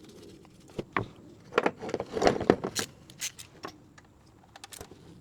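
Metal hand tools and bolts clinking and rattling as the bolts of a new thermostat housing are fitted and run down: a busy cluster of clinks between about one and four seconds in, then a few light ticks.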